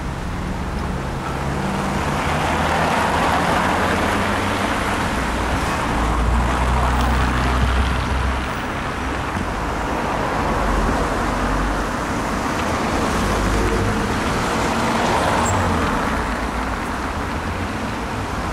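City road traffic noise: a steady rumble of passing cars that swells and eases every few seconds.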